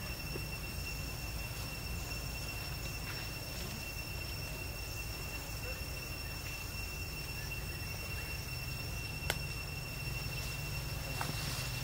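Outdoor ambience: a steady high-pitched insect drone over a low rumble, with a single sharp click about nine seconds in.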